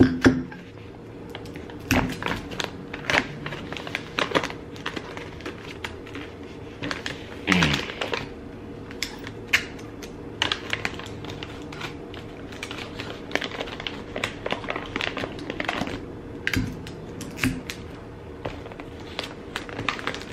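Clear tape being pulled from a desk dispenser and torn off, with paper packaging handled and pressed down on a countertop: an irregular string of taps, clicks, rustles and short rips.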